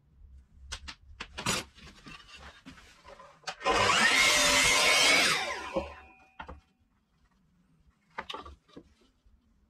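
A power tool runs on wood for about two seconds and then winds down, with a faint whine that rises and falls. Before and after it come light knocks and clicks of wood being handled.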